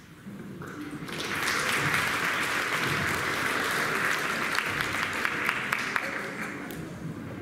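Audience applause: many hands clapping together, swelling in about a second in, holding steady, then thinning out near the end.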